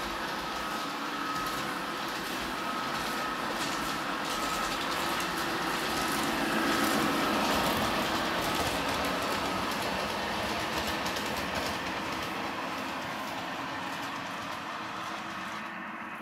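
Large-scale model train running on its track: motor whine and wheels rolling over the rails. It grows louder as it passes close about halfway through, then fades.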